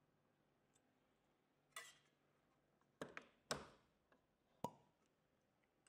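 Half a dozen sharp metallic clicks and knocks, starting about two seconds in, as the red roller guide of a Leister VARIANT T1 welder is worked loose and slid off its steel shaft.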